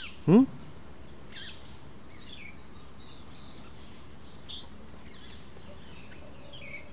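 Birds chirping here and there over a steady background hiss. A single short spoken word from a man just after the start is the loudest sound.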